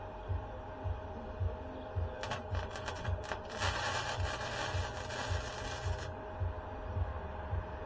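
Electric arc welding on thin steel: a few short stuttering arc strikes about two seconds in, then the arc burns steadily for about two and a half seconds and cuts off suddenly. A steady low hum runs underneath.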